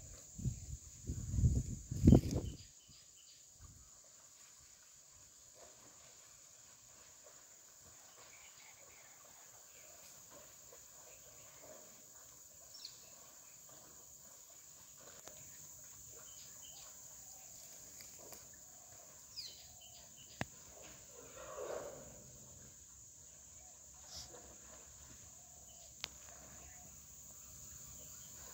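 Insects droning steadily at a high pitch. A brief loud, low-pitched buffeting noise comes about one to two seconds in, and a short sound falling in pitch comes about two-thirds of the way through.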